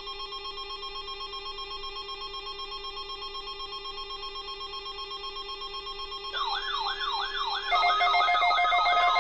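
Weather radio warning alarm sounding for the required weekly test of the alert system. Steady electronic alarm tones are joined about six seconds in by a warbling siren-like alarm that sweeps up and down about three times a second. A louder pulsing alarm comes in just over a second later.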